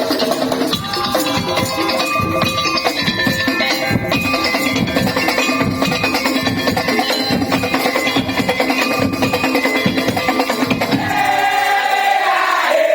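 Live percussion ensemble music with a quick, steady beat of wooden knocks and short ringing pitched tones. Voices join in singing about eleven seconds in.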